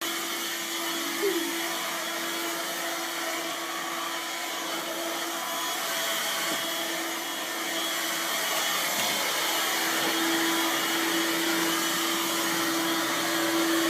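Vacuum cleaner running steadily: an even rushing motor noise with a constant hum held at one pitch. A brief short squeak about a second in.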